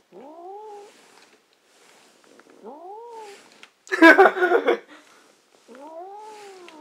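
A cat meowing: three drawn-out calls that rise then fall in pitch, the last the longest, with a louder, harsher squall about four seconds in.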